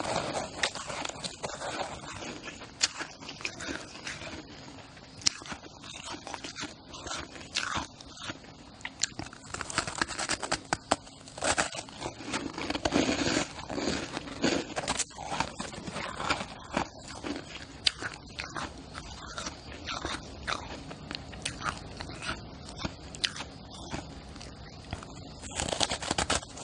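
Close-up crunching and chewing of shaved ice: sharp, irregular cracks and crackles as the ice is bitten and ground between the teeth.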